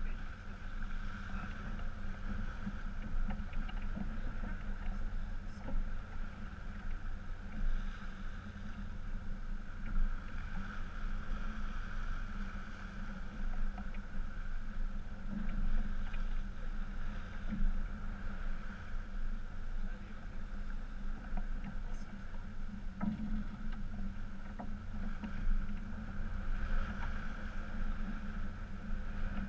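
Wind buffeting the microphone and water rushing along the hull of a sailboat under way, a steady rumble with no clear breaks.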